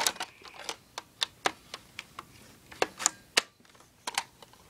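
Irregular hard plastic clicks and taps, about a dozen, some sharp and loud, as a Nerf scope is handled and snapped onto a Nerf blaster.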